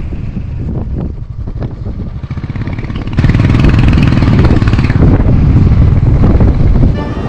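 Motorcycle engine running while riding, getting much louder about three seconds in and dropping back near the end.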